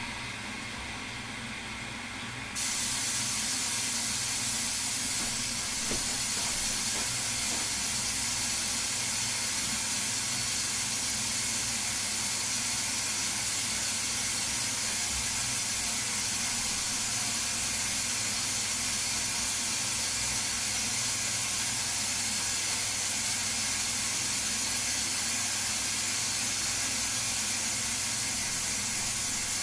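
Ardo washing machine running with a steady rush of water. It gets louder about two and a half seconds in, as something in the machine switches on, then holds even.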